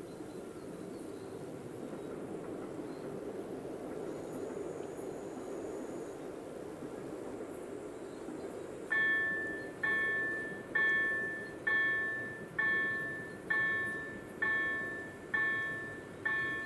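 Level-crossing warning bell, an EDE-1 electronic signal with an EDG-4 tone generator, starts striking about halfway through. It sounds a bell-like chime roughly once every 0.9 seconds, each strike fading before the next, which signals that the crossing has activated for an approaching train. Before it starts there is only a steady low background noise.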